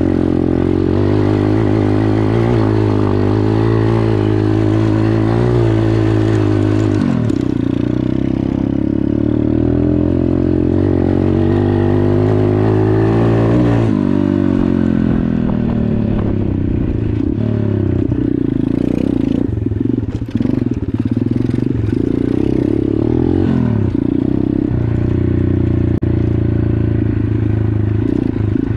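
Dirt bike engine running on a newly fitted carburetor, its speed changing a few times: the pitch drops about seven seconds in, shifts again around fourteen seconds, and wavers more in the second half.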